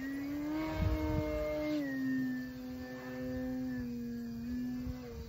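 The brushless electric motor and propeller of an E-Flite Carbon-Z Cessna 150T RC plane in flight overhead, a steady buzzing whine. Its pitch rises slightly about half a second in and eases back down near two seconds in, with a brief low rumble about a second in.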